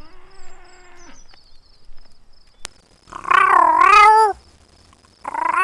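Domestic cat meowing: a faint call at the start, then two loud, drawn-out meows whose pitch wavers, the second starting near the end.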